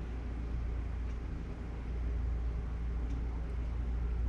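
Steady low background rumble with a faint hiss, broken by a couple of faint light ticks.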